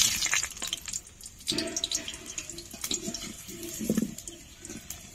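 Potato pieces going into hot oil in a frying pan and sizzling, with a sudden loud hiss at the start, then continuous crackling spatter and a few dull knocks.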